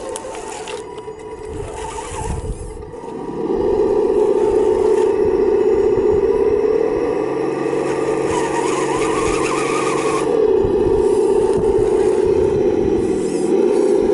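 Simulated engine sound from the RC truck's Sense Innovations ESS ONE+ sound module, a steady droning note that gets louder about three and a half seconds in as the throttle opens, with small rises and falls in pitch as the scale Defender pushes through the mud.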